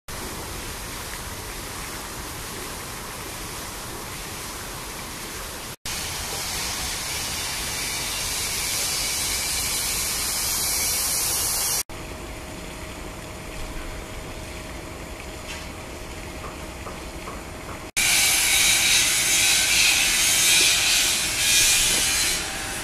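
Steady hissing outdoor noise across several clips joined by abrupt cuts, each cut marked by a brief dropout; the loudest and hissiest stretch comes in the last few seconds.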